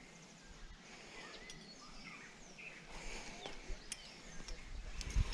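Birds chirping with short, quick up-and-down whistles over a faint background hiss, with a few sharp clicks and a low bump near the end.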